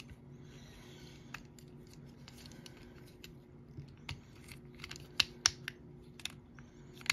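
Plastic parts of a Studio Series Galvatron transforming figure clicking and ticking as they are folded and tabbed into place by hand. There are scattered small clicks, with the sharpest pair a little over five seconds in.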